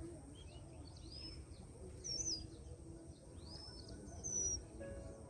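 Wild birds calling: short, high whistled notes repeated about every two seconds, with a softer arching call between them, over a low outdoor background rumble.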